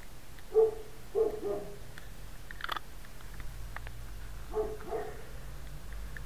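A dog barking: five short barks, one, then a pair, then another pair near the end, with a single sharp click between them.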